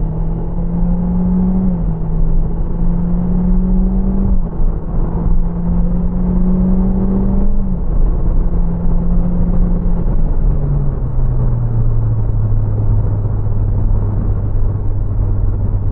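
Nissan Juke Nismo's 200 hp 1.6 DIG-T turbo four-cylinder under full-throttle kickdown through its X-Tronic CVT. The engine note climbs slowly and drops back three times as the CVT steps up like gear changes. Just before the end it settles to a lower, steady note.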